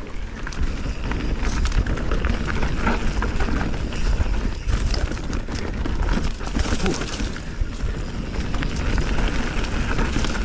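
Canyon Spectral 29 full-suspension mountain bike riding down a dirt singletrack, heard from a chest-mounted camera: steady tyre noise on dirt and leaves with frequent rattles and knocks from the bike, over a low rumble of wind on the microphone.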